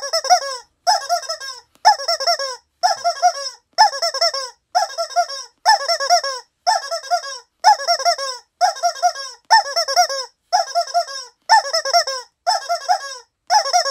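Rubber chicken squeeze toys squeaked in a steady rhythm: short clusters of four or five squeaks that bend up and down in pitch, about one cluster a second with brief gaps between.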